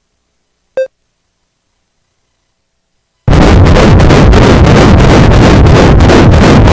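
A short electronic beep from an ultrasound machine about a second in. Then, from about halfway, loud Doppler audio of a 10-week fetus's heartbeat: a rapid, regular pulsing whoosh.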